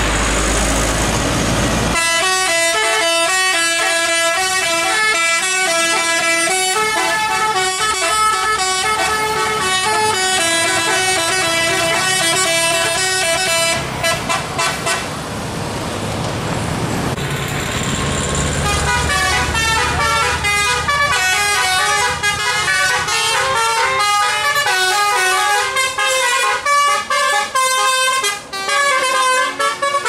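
Bus 'telolet' multi-tone musical air horn playing a quick tune of stepped notes. It breaks off about halfway for a few seconds of rushing noise, then plays a second tune.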